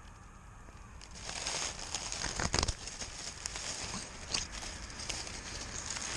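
Close rustling and crackling as a cat moves about with a camera strapped to it, with a cluster of louder crackles about two and a half seconds in.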